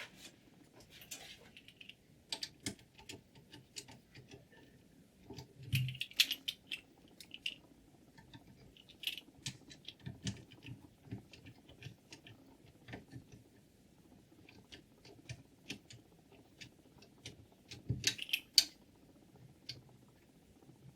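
Irregular light clicks and taps of small hard objects being handled, with louder knocks about six seconds in and again about eighteen seconds in.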